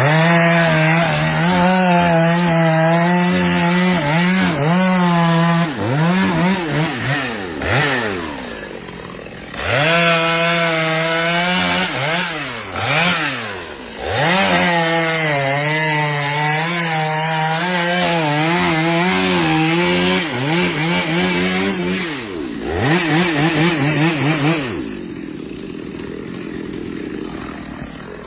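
Chainsaw cutting a tree, held at high revs for several seconds at a time, the engine note falling off and sweeping back up several times between cuts. Near the end it drops to a quieter idle.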